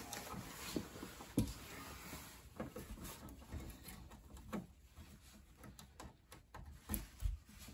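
Faint, irregular small clicks and taps of fingers working thin thermostat wires into the plastic terminals of a thermostat base plate.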